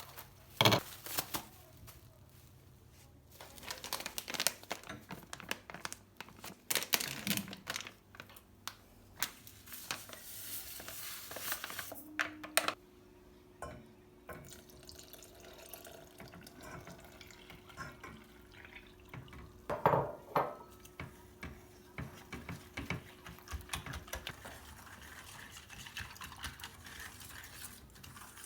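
Kitchen work sounds: dishes and utensils clinking and knocking, with stretches of water running from a tap. About halfway through, a low steady hum comes on and runs for roughly ten seconds.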